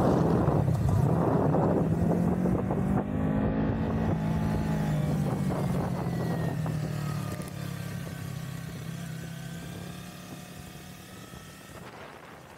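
Sport motorcycle engine running at steady track speed, a steady note with a slight drop in pitch about three seconds in. The sound fades out gradually over the second half.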